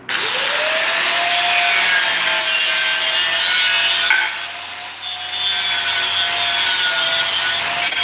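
Handheld angle grinder switched on, its motor whine spinning up within a fraction of a second, then running against a stainless steel railing pipe with a harsh grinding hiss. The level drops for about a second midway, then the grinding picks up again.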